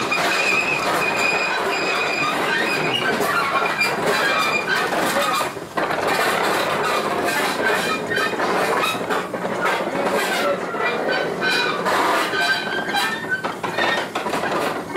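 Wheels of a 1915 Baldwin 0-6-2T steam locomotive train rolling along the rails through a curve, squealing on the curve with a clickety-clack over the rail joints.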